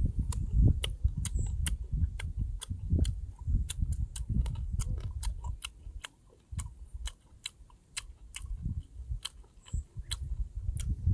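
A person chewing food, with many sharp, irregular mouth clicks and smacks over low thuds.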